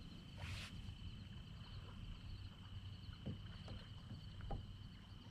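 Quiet outdoor ambience with a steady high-pitched drone, a brief hiss about half a second in, and a few faint knocks.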